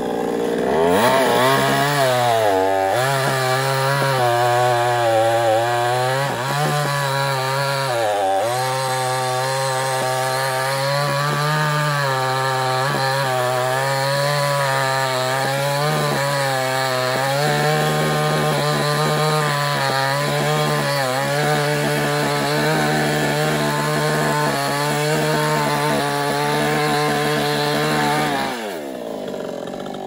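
Two-stroke petrol chainsaw running at high revs as it cuts through a felled tree trunk. The engine note sags briefly twice in the first eight seconds and drops off near the end before picking up again.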